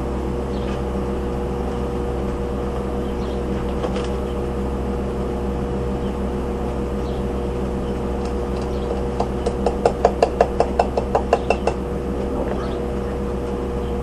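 Steady electrical hum from a Hobart Stickmate 230 stick welder's transformer. About nine seconds in, a hammer strikes steel about a dozen times in quick succession, each blow ringing.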